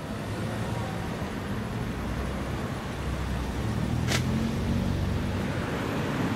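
Road traffic beside a station forecourt: cars passing with a steady low engine and tyre rumble, and one brief sharp noise about four seconds in.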